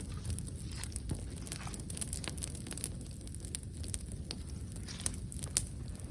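Wood campfire crackling: irregular sharp pops over a low steady rumble, with one louder pop about five and a half seconds in.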